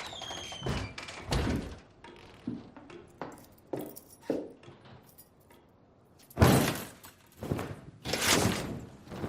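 Scattered thunks and knocks in a room, like a door and objects being handled, followed by a few louder rushing noises of about half a second each in the second half.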